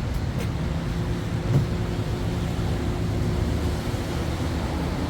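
A vehicle engine running steadily: a low, even rumble with a faint steady hum above it and one brief knock about a second and a half in.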